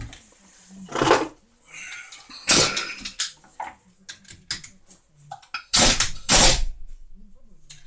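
Compressed air from an air-hose blow gun hissing in three short blasts, about one, three and six seconds in, with light clicks between them.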